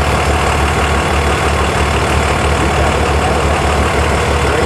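Diesel engine of a Dodge Ram pickup, a Cummins turbodiesel, running steadily and heavily fuelled, blowing thick black smoke.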